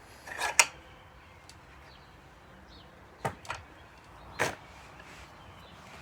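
A few short, sharp knocks and clicks of hard objects being handled: a quick cluster in the first second, a pair a little after three seconds in, and one more about four and a half seconds in.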